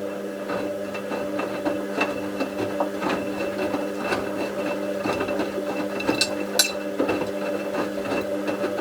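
Bauknecht WA 7778 W washing machine running with a steady hum and scattered clicks and knocks, then stopping abruptly near the end.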